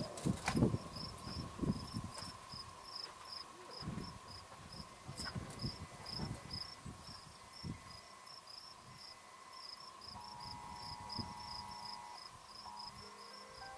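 An insect chirping steadily in a high, even pulse, about three chirps a second. Low gusts of wind rumble on the microphone, loudest in the first couple of seconds, then die down.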